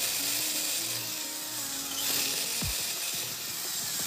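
An electric drill-driver's motor running with a steady high whine while its chuck stays stalled against the floor; the motor spins freely because the gear inside is worn out and slipping. A short falling sweep comes about two and a half seconds in.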